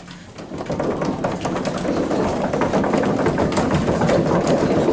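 A small group clapping: quick, dense applause that builds up about half a second in and then keeps going steadily.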